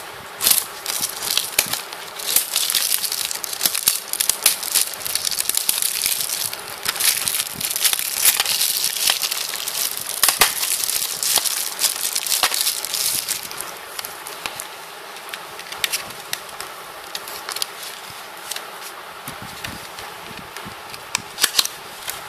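Crinkling and rustling of plastic packaging as a CD album is opened and handled, dense for about the first half. It then turns quieter, with scattered clicks and taps.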